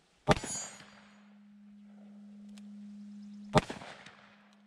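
Two shots from a Taurus 605 snub-nose revolver firing factory .357 Magnum 158-grain jacketed soft-point rounds in single action, about three seconds apart.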